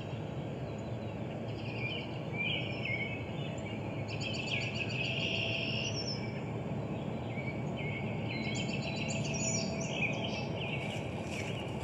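Songbirds singing in several short trilling and chirping phrases over steady low outdoor background noise.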